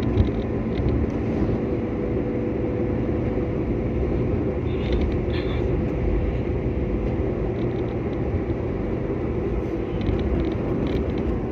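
Steady engine and road rumble inside the cabin of a moving car, with a faint hum and a small knock just after the start.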